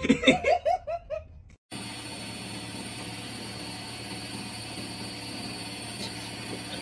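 A person laughing in short bursts, then after a sudden cut a washing machine running with a steady mechanical hum.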